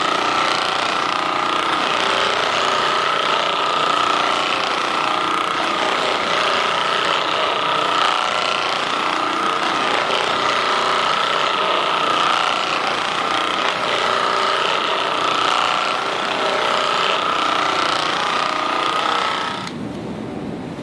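Handheld percussive massage gun running steadily, a buzzing hammer with a steady motor whine, switched off near the end.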